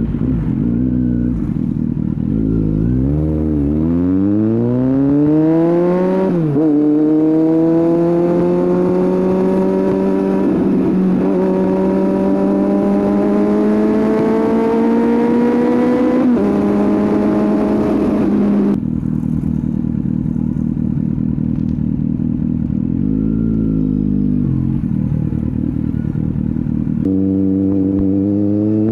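Kawasaki Z800 inline-four engine through a Scorpion aftermarket exhaust, accelerating hard. The revs climb, drop at an upshift about six seconds in, then climb slowly to a second shift around sixteen seconds. About nineteen seconds in the throttle snaps shut and the engine falls to a low, uneven run, then revs up again near the end.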